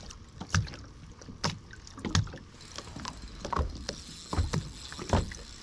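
Water slapping against the hull of a bass boat: irregular knocks about every half second over a low wash, with a faint high hiss in the second half.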